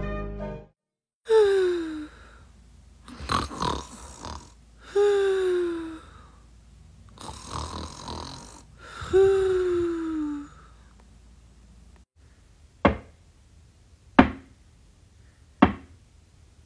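A person snoring: three cycles of rasping inhales, each followed by a whistling exhale that falls in pitch. Then three sharp knocks on a door, spaced about a second and a half apart.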